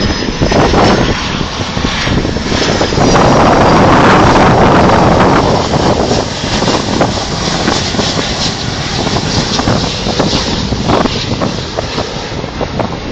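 Jet airliner's engines rushing as it comes in to land, swelling to their loudest a few seconds in, with a thin high whine rising early on.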